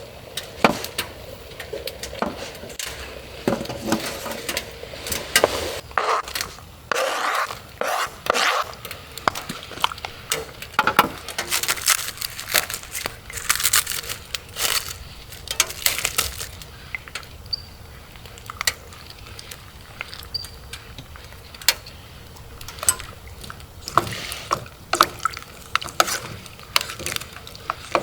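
Irregular clinks, taps and scrapes of camp cookware and utensils being handled, with rain hissing steadily behind.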